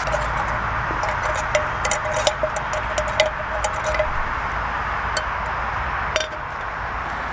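Steady rush of road traffic under scattered light clicks and scrapes of a metal utensil against a small metal pan as browned ground beef is scraped out of it.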